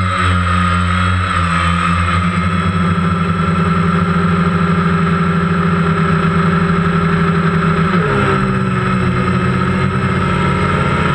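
DJI Phantom quadcopter's motors and propellers whirring steadily in flight, heard from the GoPro mounted on the drone itself, with the pitch of the whine shifting about eight seconds in as the drone manoeuvres.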